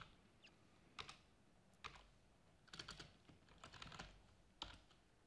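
Faint typing on a computer keyboard: single key clicks and short irregular runs of keystrokes.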